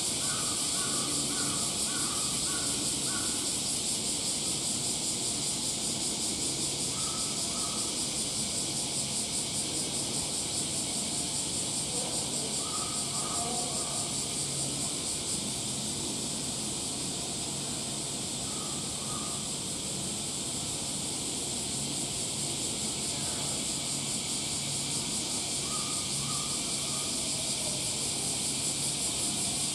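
A steady high hiss of background noise, with short runs of quick, faint calls every few seconds.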